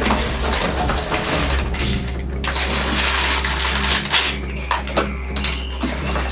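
Plastic bags of Lego bricks and the cardboard set box being handled, with crinkling and rustling and a few sharp clicks, over a steady low hum.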